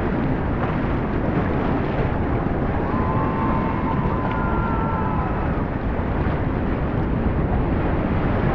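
Rushing whitewater of a river rapid, a loud, steady roar of water. A few faint thin tones sound over it in the middle.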